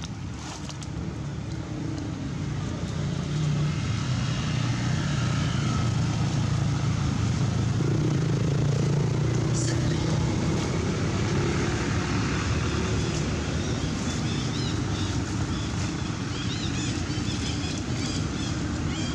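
A motor engine running, a steady low hum that grows louder over the first few seconds and then holds, with a few faint high chirps near the end.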